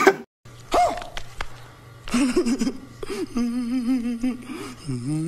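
A brief burst of a man's laughter cuts off just after the start. Then a man wails in long, quavering, drawn-out cries, his voice wobbling up and down in pitch.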